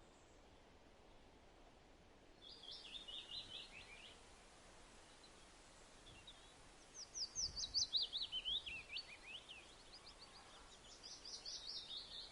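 A bird singing three phrases, each a quick series of high notes that falls in pitch, the middle phrase the loudest, over a faint background hiss.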